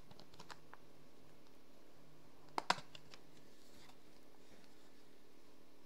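Scattered light clicks, with two sharper clicks close together about two and a half seconds in.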